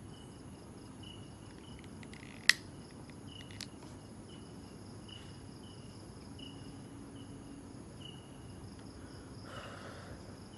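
Night insects chirping in short, evenly spaced pulses, a little more than one a second. About two and a half seconds in, a single sharp click of a plastic disposable lighter being struck to light a cigarette, and near the end a short breathy rush of smoke being exhaled.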